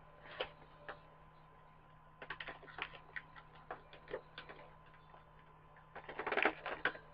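Light plastic clicks and taps from handling a plastic action figure and its packaging, with a louder burst of crinkling and clicking about six seconds in.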